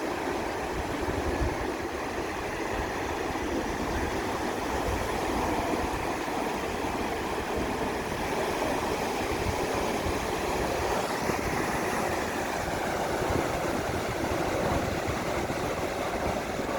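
Ocean surf on a beach: a steady rushing wash of waves with no distinct single breaks.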